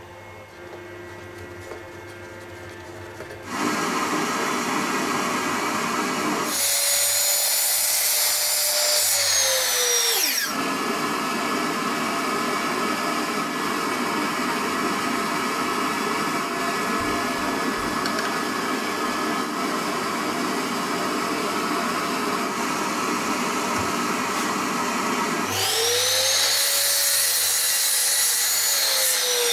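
Miter saw motor run twice, a few seconds each time, while cutting a small Ipe (ironwood) dowel in a jig. Each run ends with the whine falling as the blade spins down. Under and between the runs a steady machine noise carries on.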